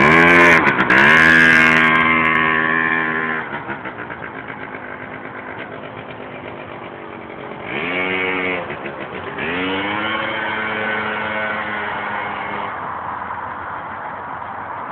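Small moped engine revving while riding. It climbs near the start and holds high for about three seconds, drops back, then revs up twice more around the middle before settling to a lower steady note.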